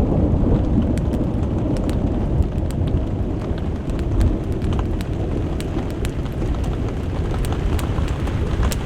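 Thunder rumbling low and long during a thunderstorm, with rain falling and scattered sharp ticks close by.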